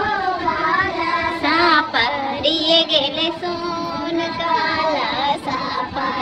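Women singing a jhumar, a Bihari wedding folk song, in a continuous flowing melody.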